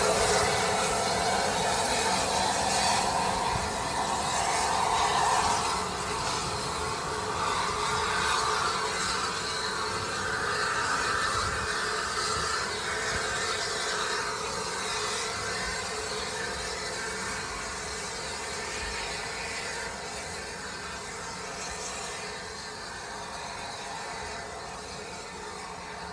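Bulleid Battle of Britain class steam locomotive 34053 pulling away with steam hissing. The sound is loudest in the first few seconds and fades steadily as the engine draws off into the distance.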